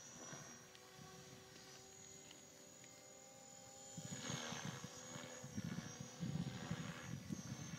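Align T-Rex 500 electric RC helicopter flying at a distance: a steady high motor whine that wavers slightly in pitch, over a lower rotor hum. A low gusty rumble comes in about four seconds in.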